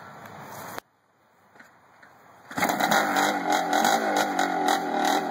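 1976 Wheelsmith Maico 440cc two-stroke single-cylinder dirt bike engine starting up about two and a half seconds in, then running loudly with a wavering, revving note.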